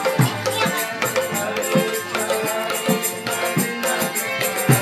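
Music with a steady drum beat and rattling percussion over held melodic notes.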